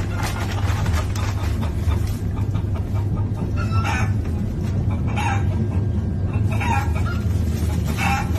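Recorded chicken clucking played through a Bluetooth speaker, one call about every second and a half from about four seconds in. Under it runs the steady low rumble of the moving train.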